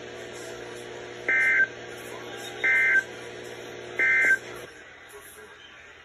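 NOAA Weather Radio Emergency Alert System end-of-message code, three short warbling bursts of SAME digital data tones about 1.3 s apart from a weather alert radio's speaker. They mark the end of the flash flood warning broadcast. A steady low hum underneath cuts off shortly before the end as the transmission closes.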